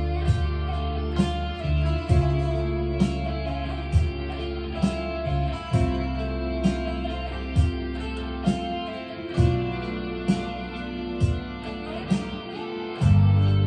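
Harley Benton Fusion-T electric guitar with EMG pickups played along with a recorded song, with drums on a steady beat about once a second and bass underneath. The music swells louder near the end.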